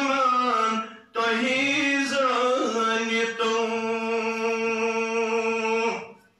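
A man's voice chanting melodically in two phrases with a short break about a second in, the second ending in a long held note that cuts off near the end.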